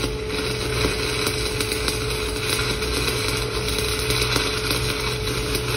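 E6010 stick-welding electrode arc burning steadily: a continuous, harsh crackle packed with rapid small pops, at an even level throughout.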